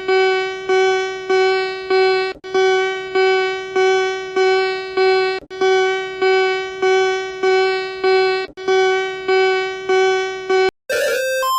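Emergency alert alarm tone: one buzzy note repeated about every 0.6 s in groups of five, each pulse fading a little, with a short break about every three seconds. Near the end it cuts to a different alarm of alternating high and low tones.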